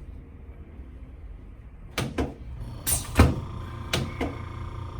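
Short knocks and thuds of a chiropractic adjustment on a treatment table, about six of them from two seconds in, the loudest a little after three seconds. A faint steady hum runs on after it.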